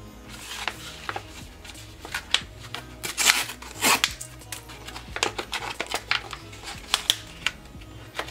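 Plastic product pouch crinkling and crackling as it is handled, a quick irregular run of sharp snaps and rustles, busiest a few seconds in.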